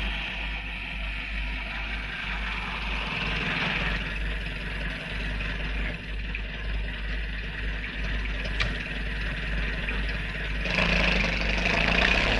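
Early four-cylinder Tatra Type T open car's engine running as it drives, under a steady hum from the old film soundtrack; it grows louder about eleven seconds in.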